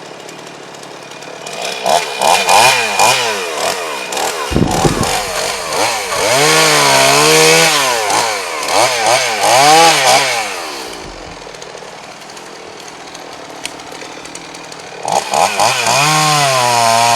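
Small two-stroke chainsaw engine revved up and down again and again, its pitch rising and falling with each blip of the throttle. It drops back to a low idle about eleven seconds in, then revs up again near the end. A short knock comes at about four and a half seconds.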